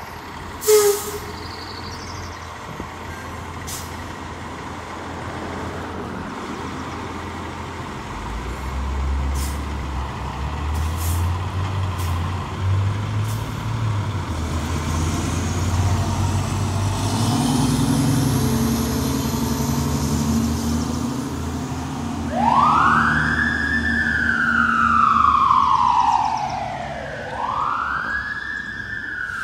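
Fire engine pumper responding: its air brakes release with a sharp hiss about a second in, then the engine rumbles louder as it pulls out. Near the end the siren starts, two wails that each rise quickly and fall slowly.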